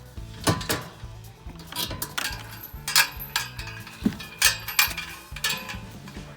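Background music with a stepping bass line, over a series of sharp metallic clinks and clanks.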